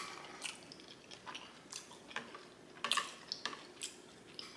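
Close-miked mouth chewing of a shrimp wonton: wet smacks and clicks at an irregular pace, about eight in a few seconds.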